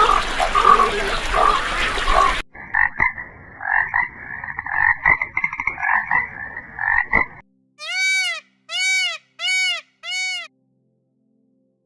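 Frogs croaking in quick, pulsing bursts for several seconds, after a short stretch of noisy chirping. Near the end come four separate calls, each rising and falling in pitch.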